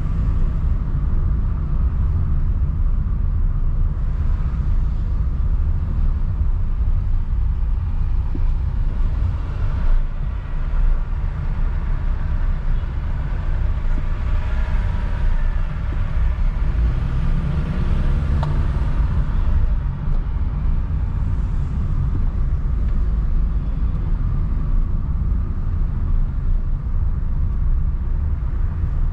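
Car driving through city streets: a steady low rumble of engine and road noise, with a brief rising tone a little past halfway.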